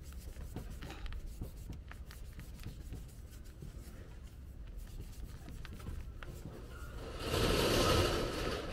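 Cloth rubbing and wiping over a car's plastic front bumper at a scraped patch, a soft, scratchy swishing with small ticks. A louder stretch of noise, just over a second long, comes about seven seconds in.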